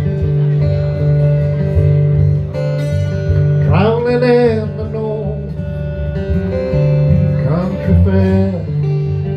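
Acoustic lap slide guitar played flat across the lap: a repeating picked bass pattern under ringing held notes, with a wavering, bending note about four seconds in and again about eight seconds in.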